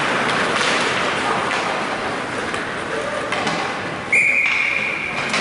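Ice hockey rink noise, with skates on the ice and a few sharp knocks of sticks and puck, then about four seconds in a referee's whistle blows one long blast that stops play.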